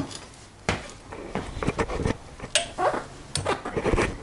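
Irregular metallic clicks and knocks from hand tools working on a motorcycle's rear axle and chain adjuster.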